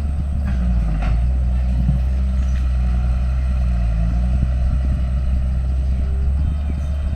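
Diesel engine of a heavy earthmoving machine running steadily under work, with a few light knocks about one and two seconds in.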